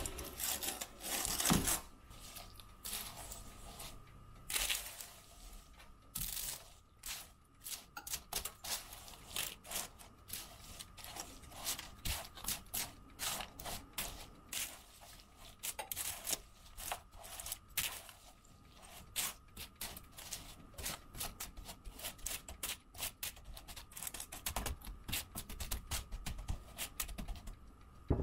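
Irregular light clicks, taps and rustles of things being handled by hand, with a faint steady high hum underneath.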